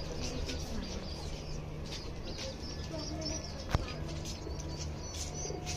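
Domestic birds in a courtyard: short high chick peeps and low pigeon coos over a steady low hum, with one sharp click about two-thirds of the way through.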